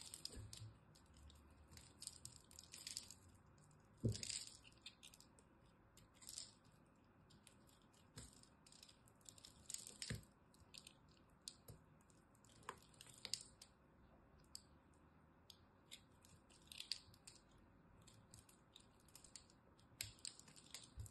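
Utility-knife blade shaving and carving a ball of pressed soap chips, giving crunchy crackles and crumbling ticks at irregular intervals, with the sharpest cracks about 4 and 10 seconds in.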